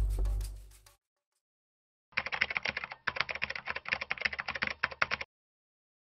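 Closing theme music with drums fading out in the first second, then rapid computer-keyboard typing: a quick run of key clicks lasting about three seconds, with a brief break partway through.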